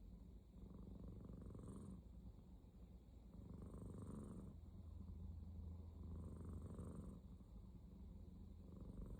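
Sleeping house cat snoring faintly, a raspy breath swelling and fading about every two and a half seconds over a steady low rumble.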